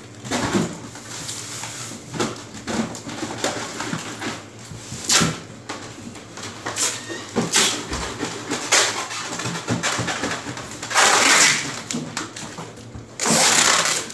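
Plastic food containers being packed into a styrofoam box: a string of knocks and clicks as the containers are set down and pushed in, with two longer scraping rubs of plastic against styrofoam near the end.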